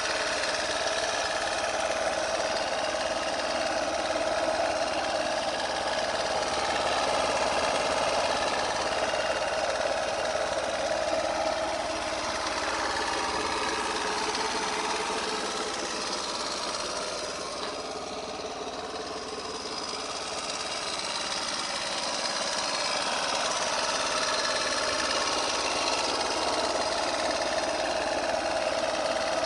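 Piaggio Liberty S 50 scooter's small single-cylinder engine idling steadily, dipping slightly in level about two-thirds of the way through.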